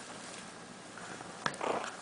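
Yorkshire Terrier puppy making a short, rough vocal sound about one and a half seconds in, just after a sharp click.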